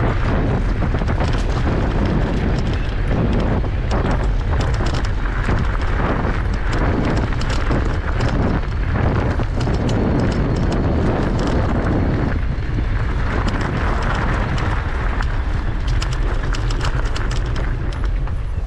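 Wind rumble on the microphone and a knobbly bike tyre crunching over gravel as the bike is ridden fast along a track. The noise falls away near the end as the bike slows onto grass.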